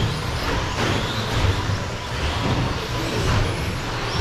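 Several electric radio-controlled short course trucks racing on a carpet track, their motors whining up and down in pitch as they accelerate and brake, over a steady rumble of tyres.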